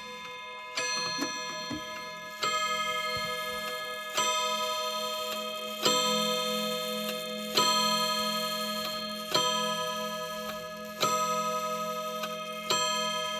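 New Haven Westminster 8-day mantel clock striking the hour. Single ringing strokes come evenly, about one every 1.7 seconds, eight in all, and each rings on and fades before the next.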